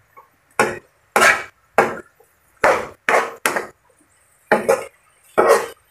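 Metal spatula scraping and knocking against a wok while shredded cabbage and carrot are stir-fried, in about nine short strokes at an irregular pace.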